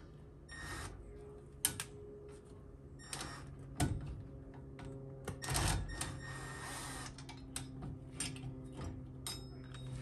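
Small metal clicks and clinks of hand work on the axle-retainer T-bolts and lock nuts behind a Ford 9-inch rear axle flange, with a rustle about five and a half seconds in, over a steady low hum.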